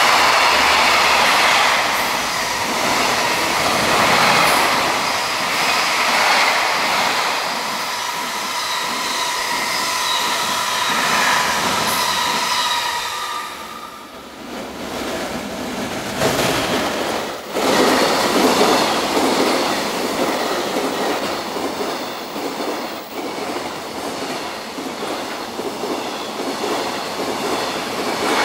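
JR Freight container trains running past at speed, wheels on the rails with a thin, steady squeal through the first half. About halfway through the sound dips briefly and a second freight train's running noise takes over.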